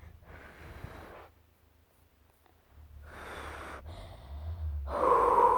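A child blowing out three breaths of air, the last one the longest and loudest with a faint whistle in it.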